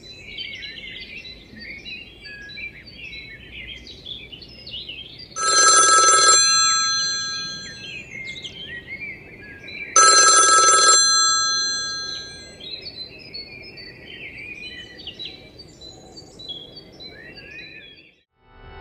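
Birds chirp throughout, and a loud electric ring sounds twice, each ring about a second long and trailing off.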